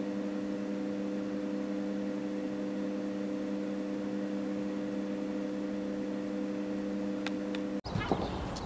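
Steady electrical hum of a few fixed low tones over a soft hiss. It cuts off abruptly near the end and gives way to noisy outdoor background sound.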